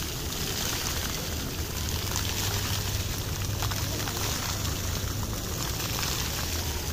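Water jets of an illuminated fountain arcing over and splashing down onto wet paving and a shallow pool, a steady rush of falling water with a low rumble underneath.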